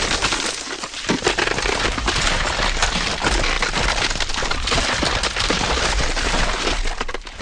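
Ice cracking and breaking: a dense, unbroken run of sharp cracks and crackles over a low rumble.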